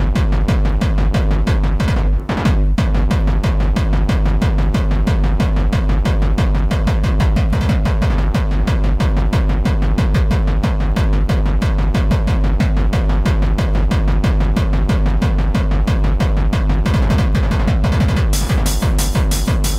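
Tribal tekno track: a fast, steady driving kick-drum beat under layered electronic sounds. The beat drops out briefly about two seconds in, and near the end a bright, crisp high percussion pattern comes in on top.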